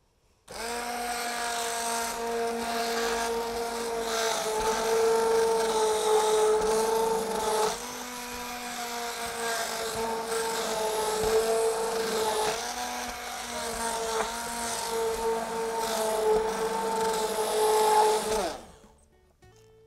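Hand-held immersion blender running in a pot, puréeing cooked cucumber soup. Its motor gives a steady whine that dips briefly twice, switching on just after the start and off near the end.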